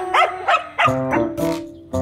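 A dog giving about four short, quick barks in the first second while playing with another dog. Background music runs throughout.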